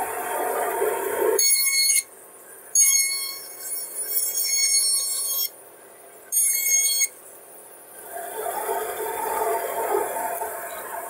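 Old bandsaw running while a thin piece of wood is fed through the blade. It gives three loud, high-pitched squeals: about a second and a half in, from about three to five and a half seconds, and briefly near seven seconds. Between and after them a steadier, lower running sound.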